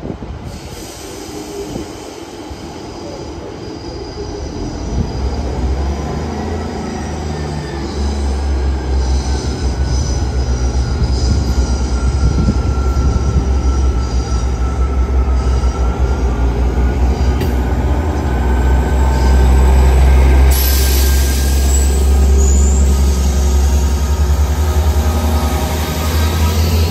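Class 159 and 158 diesel multiple units pulling away: their underfloor diesel engines throttle up into a low drone that grows louder over the first several seconds, with a slowly gliding whine above it. Thin high wheel squeal runs over the top and sharpens about twenty seconds in as the coaches pass.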